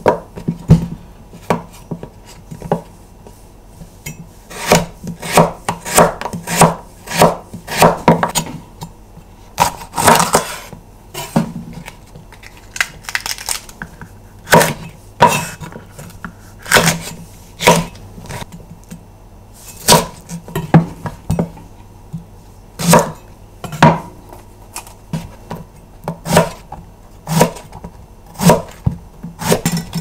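Santoku kitchen knife chopping carrot and green pepper on a wooden cutting board: sharp knocks of the blade striking the board, in uneven runs with short pauses.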